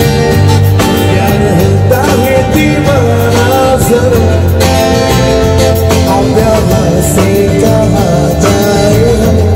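Live amplified band music: electric guitar, bass and drums playing a song with a steady beat and a wavering melody line over it.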